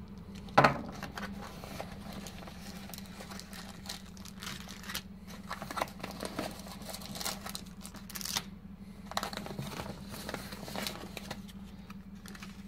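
Brown paper mailing packaging being rustled and crumpled by hand in a series of short crinkles, with one sharp knock on the desk about half a second in, the loudest moment.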